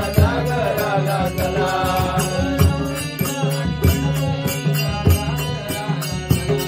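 Marathi devotional bhajan: a male voice sings a melody over the steady drone of a harmonium. A laced barrel drum (pakhawaj) and a second hand drum play regular deep strokes, and small hand cymbals add bright clicks.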